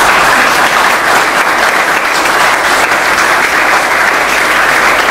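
Audience applauding: steady clapping from a seated crowd.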